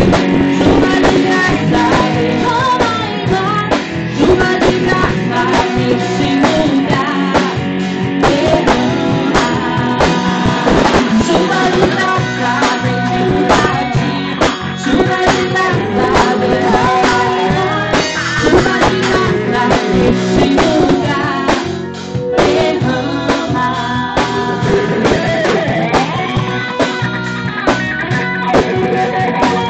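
Live band playing: electric guitar over a drum kit, with keyboard.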